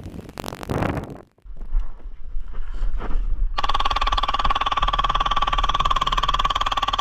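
Electric airsoft gun firing a long full-auto burst: a steady, rapid mechanical buzz starting about halfway in, after a brief rustle and a sudden cut.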